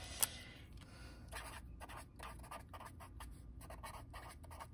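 Invisible-ink pen writing on lined notebook paper: faint, short, irregular pen strokes from about a second in, after a single click just after the start.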